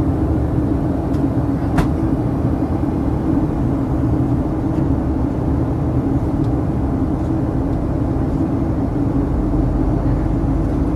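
Steady cabin noise of a Boeing 737-800 on approach, heard from inside the cabin beside the wing and its CFM56-7B engine: a continuous engine hum over airflow rumble and hiss. A single sharp click comes about two seconds in.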